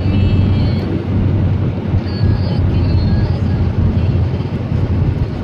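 Car driving at road speed, heard from inside the cabin: a steady low drone of engine and tyre noise.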